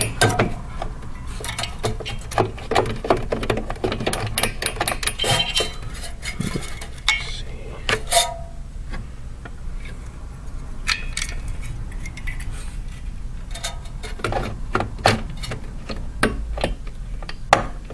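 Metal CPU heatsink being handled and fitted onto a processor, with irregular clusters of sharp clicks and metallic clinks. They are dense for the first several seconds, sparse in the middle, and come thick again near the end.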